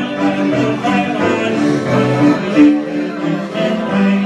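A live dance band playing popular dance music, with held melodic notes over a steady accompaniment.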